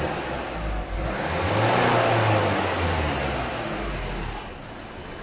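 Ford C-Max 1.6 TDCi four-cylinder diesel engine revved with a blip of the throttle. It rises from about a second in and falls back toward idle near the end. The blip is meant to provoke the hunting idle caused by a missing injection on the third cylinder.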